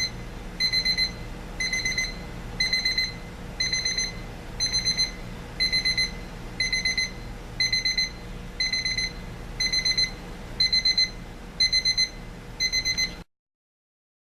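Westclox Big Ben Classic quartz alarm clock's electronic crescendo beep alarm sounding: quick clusters of high-pitched beeps, about one cluster a second. It cuts off suddenly near the end.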